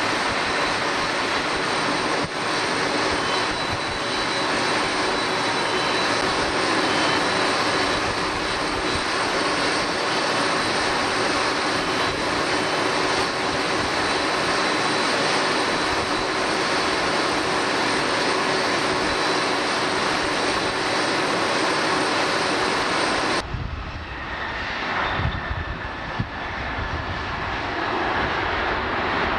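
Airliner engines running with a steady whine over a full rush of noise. About 23 seconds in, the sound breaks off abruptly into a duller, lower rumble that builds again toward the end.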